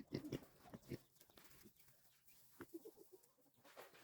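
Pigs giving a few quiet, short grunts, most of them in the first second.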